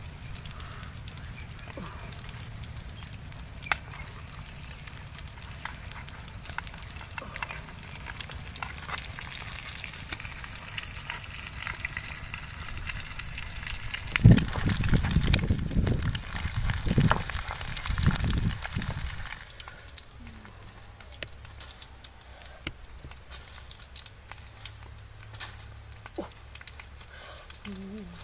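Food frying in a pan with a steady sizzle. From about 14 to 19 seconds in there is louder low rumbling and knocking, and the sizzle dies down about 20 seconds in.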